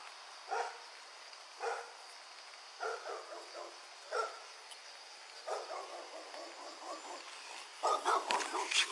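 Pit bull barking in single barks roughly a second apart, then a louder, quicker flurry of barks and sharp noises near the end.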